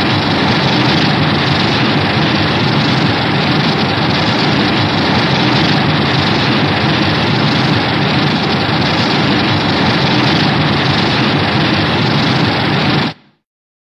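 Shin Godzilla film sound effect: a loud, steady noise with no clear pitch, held without change, that stops abruptly near the end.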